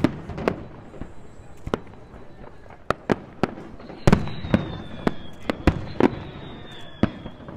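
Fireworks display: aerial shells bursting in a string of sharp, irregular bangs, the loudest about four seconds in. A thin high whistle slowly falls in pitch through the second half.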